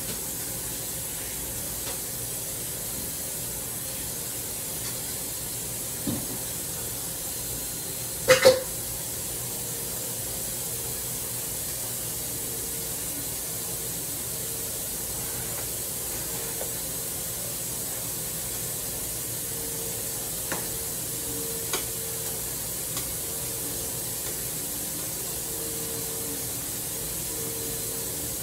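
Steady hiss at the stove while a pot of greens cooks, broken by a loud double clank about eight seconds in and a few light knocks later as a spoon stirs in the pot.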